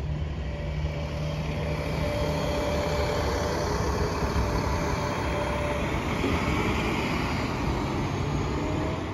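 City transit bus driving past close by: diesel engine running and tyres on pavement, loudest in the middle of the pass.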